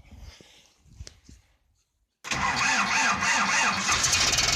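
Ursus C-4011 tractor's four-cylinder diesel cold-started at −4 °C on a Chinese-made replacement starter. After a couple of seconds of near quiet, the starter suddenly cranks the engine in an even pulsing rhythm, and about four seconds in the engine catches and runs.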